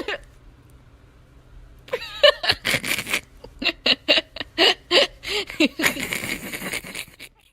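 A person laughing hard in a run of short bursts, cutting off suddenly near the end.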